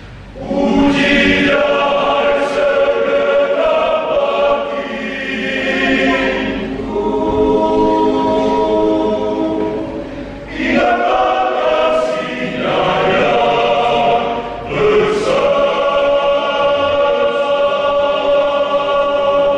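Men's choir singing a cappella in parts: sustained chords sung in phrases, with short breaks between phrases, the clearest about half a second in and about ten seconds in.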